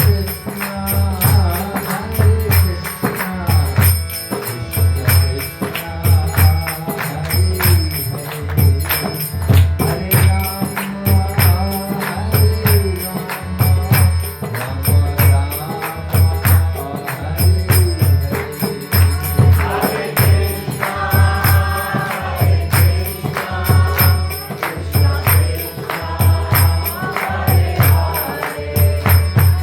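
Devotional chanting sung by voices over a drum beating a steady pulse, with small hand cymbals ringing on the beat. The singing swells about two-thirds of the way through.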